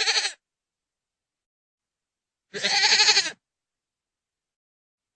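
Goat bleating: the tail of one bleat at the very start, then one full bleat of just under a second about two and a half seconds in, with a quavering, wavering voice.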